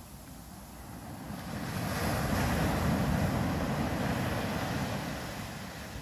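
Ocean surf washing up a sandy beach: the rush of one wave builds about a second in, is loudest midway, and fades toward the end.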